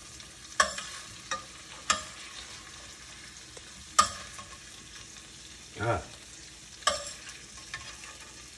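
Oil sizzling steadily in a hot stainless sauté pan on a gas burner, with several sharp metal clicks and scrapes as tongs pick roasted vegetables out of the pan.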